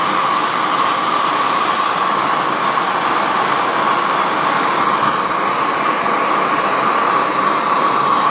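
Handheld gas torch burning with a steady hiss, its blue flame worked around an AR-15's flash hider to heat the threads and break down the thread locker.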